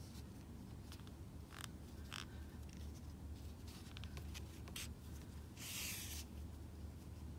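Yarn and a crochet hook being worked by hand: faint scratchy rustles and light clicks, with a longer rustle of the yarn a little under six seconds in, over a steady low hum.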